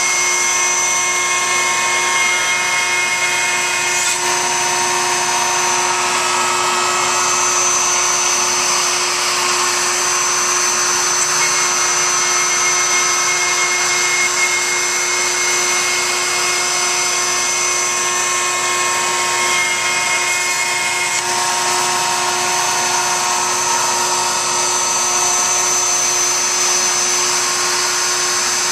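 CNC router cutting through wood as it surfaces away the waste of a glued-in inlay plug, with dust extraction pulling through the brush dust shoe. A loud, steady machine noise with one constant hum and several high whines that come and go every few seconds.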